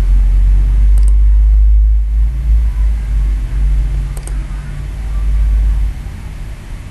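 A deep, loud rumble that holds for about six seconds and then drops away, with two quick computer-mouse double-clicks, one about a second in and one about four seconds in.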